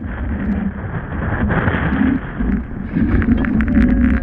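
Wind buffeting the microphone and water rushing past the hull of a Nacra F16 catamaran sailing fast through choppy water. About three seconds in, sharp splashes and crackles of spray join in.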